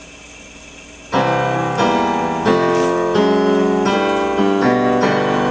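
A low steady hum, then piano chords from about a second in, struck one after another and each left to ring: the accompaniment of a song.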